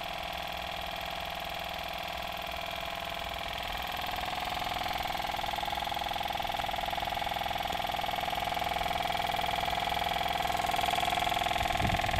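Homemade tin-can Stirling engine running, its crank and flywheel making a steady mechanical hum with several held tones that grows louder about four seconds in. The engine is speeding up as it warms.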